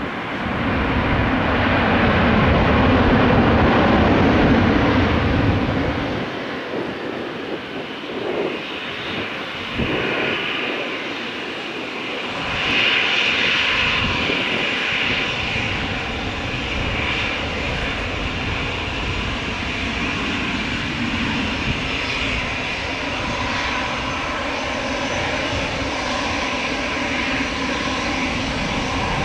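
Airbus A319 airliner's twin jet engines running. They are loud over the first few seconds, ease off, then swell again about thirteen seconds in with a higher whine and hold steady.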